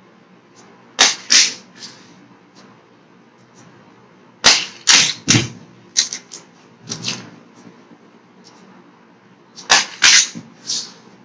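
A matchbox repeatedly tossed and landing with sharp clacks on a hard tabletop: two clacks about a second in, a quick run of five or six in the middle, and three more near the end.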